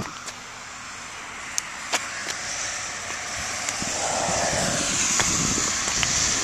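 A vehicle approaching on a wet road, its tyre hiss and engine getting louder through the second half. A few sharp clicks come about two seconds in.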